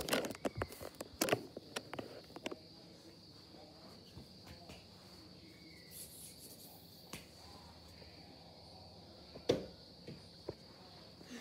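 Handling noise as the camera is moved over the rug: a quick run of knocks and rustles in the first two seconds or so, then a faint steady high whine, with one more knock about nine and a half seconds in.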